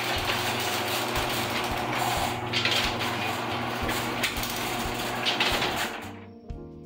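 Sectional garage door opening along its steel tracks: the rollers rumble and rattle over a steady hum, stopping about six seconds in. It is still loud after a worn roller was replaced, and another roller is suspected.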